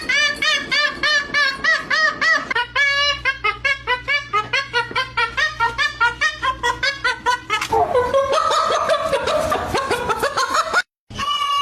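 A parrot laughing in rapid, even 'ha-ha' bursts, about four a second, each bending up and down in pitch. After about seven and a half seconds it gives way to a rougher, sliding call.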